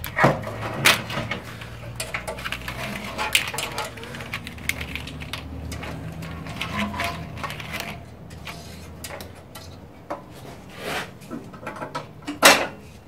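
Scattered knocks and clicks of metal parts being handled as an aluminum radiator with electric fans and shroud is lowered into the truck's core support and its wiring is connected.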